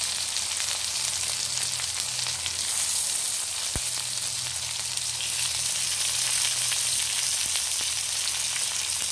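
Pieces of fried pomfret and tomato-onion masala sizzling in hot oil in a kadai: a steady hiss full of small crackles, with one sharp tick about four seconds in as the fish pieces are set down.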